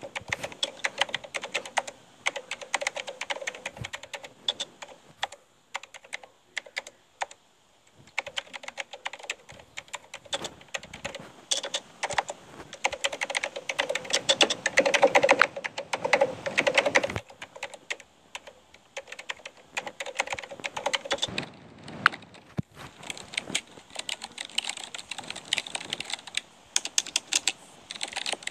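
Typing on a computer keyboard: fast runs of key clicks, broken by a couple of short pauses.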